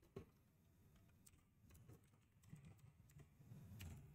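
Faint typing on a computer keyboard: scattered individual keystrokes.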